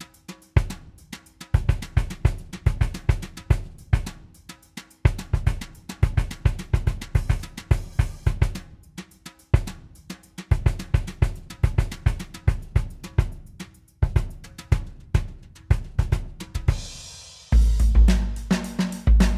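A sampled acoustic drum kit from Native Instruments' Abbey Road Drums library plays a steady groove of kick, snare, hi-hat and cymbals, dry and unprocessed. Near the end the sound changes: a cymbal wash, then a sustained low bass tone under the beat.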